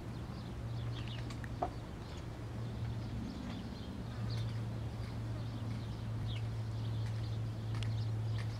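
Rural ambience: scattered short bird chirps over a steady low hum, with a single click about a second and a half in.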